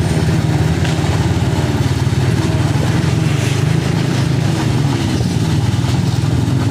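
Small motorcycle engines running at low speed in a slow-moving group, a steady engine drone whose pitch rises and falls now and then as throttles are opened and eased.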